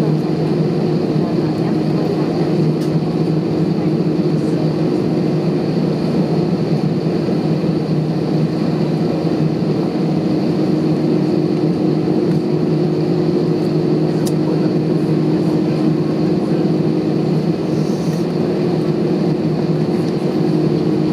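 Steady hum of an Airbus A320 heard inside the passenger cabin: a low engine drone with a faint high whine above it, holding steady with no rise in power.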